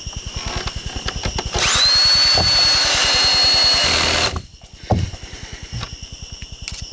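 Power drill driving a screw through a plastic pegboard tile into the wall. Its motor spins up quickly, runs steadily for about three seconds, then stops, followed by a single knock.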